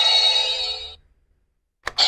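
Electronic sound effect from a Kamen Rider ZEZTZ DX transformation-belt toy: a held ringing tone made of several steady pitches that fades out about a second in, then a sharp click near the end as the next sound begins.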